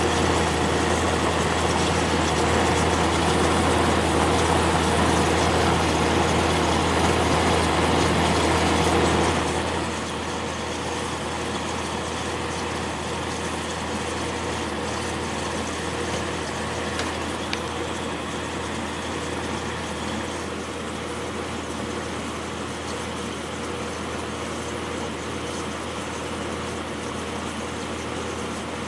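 Magic Chef dehumidifier running with its compressor on: a steady hum under the fan's rush of air. It is louder for the first nine seconds or so, then drops a little and holds steady.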